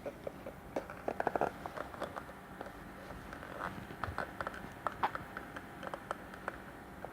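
Hands squeezing and stretching a large slime, making irregular wet clicks and pops, with a quick flurry about a second in.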